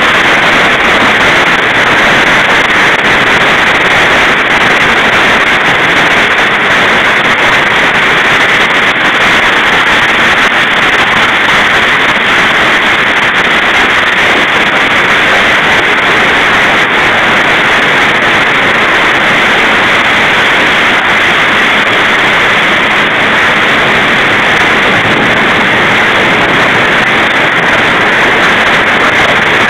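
Heavy hail falling with rain, a loud, steady hiss of countless small impacts that does not let up.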